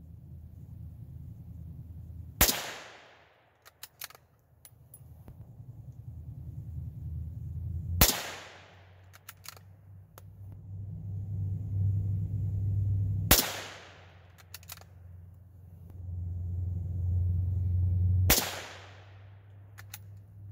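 Four shots from a Savage Model 93G bolt-action .22 Magnum rifle, about five seconds apart, each with a short echoing tail, and light clicks of the bolt being worked between shots. A low rumble swells and fades between the shots.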